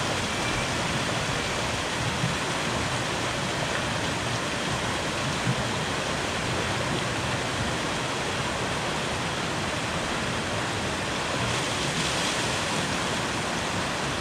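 Steady rushing of fast water down a river-rapids ride channel, with small waterfalls spilling over artificial rockwork.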